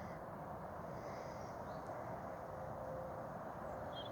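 Steady, quiet woodland background hiss, with a robin's short warbling song phrase starting near the end.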